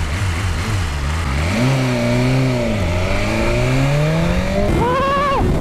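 BMW S1000RR's inline-four engine pulling away hard from a standstill. The revs are held low at first, then climb, drop at a gear change about three seconds in, and climb again into high sweeping revs near the end.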